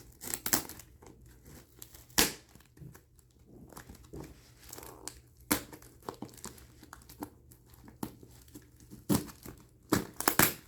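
Packaging being unwrapped and torn open by hand: irregular crinkling and tearing with sharp crackles.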